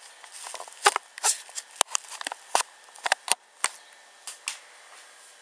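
An irregular run of sharp clicks and taps, about fifteen in a few seconds and uneven in loudness, over a faint steady hiss.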